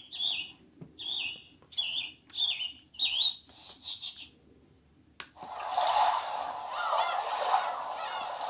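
Holife digital alarm clock playing its bird-song alarm sound at full volume through its small speaker: a run of short chirps. About five seconds in, after a click, it switches to a different, fuller alarm sound.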